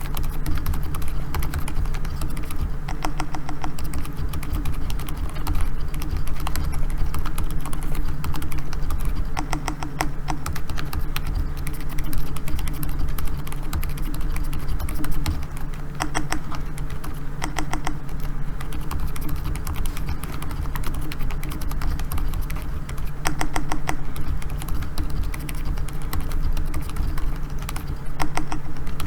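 Continuous fast typing on a Keychron K4 mechanical keyboard with hand-lubed Gazzew Bobagum silent linear switches: a dense run of soft, muffled keystrokes over a steady low hum.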